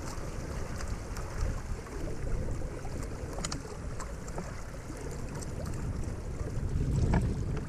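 Water splashing and rushing along the hull of a Windrider 17 trimaran under sail, with wind buffeting the microphone as a steady low rumble and scattered small splashes.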